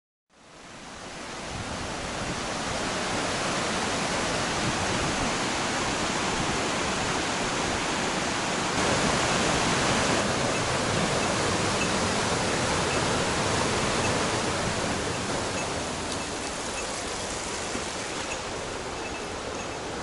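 A rocky mountain river rushing steadily, fading in over the first second or two and loudest about halfway through.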